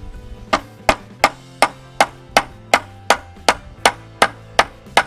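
Hammer striking wood in a steady run of sharp blows, about three a second, starting about half a second in, as the picnic table kit's boards are knocked together.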